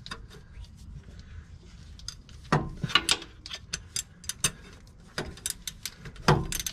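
Ratcheting wrench clicking in quick, irregular strokes as it turns the oil filter adapter bolt on a Jeep 4.0 straight-six, the bolt having just broken free. Two louder knocks stand out, about two and a half seconds in and near the end.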